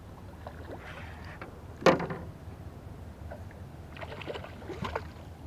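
A hooked jack thrashing at the water's surface as it is brought in: one sharp, loud splash about two seconds in, then smaller splashes and knocks near the end, over a steady low background rumble.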